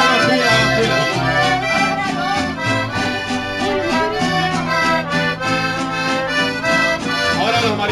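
Live mariachi band playing an instrumental passage: a sustained melody over rhythmic guitar strumming and a moving bass line.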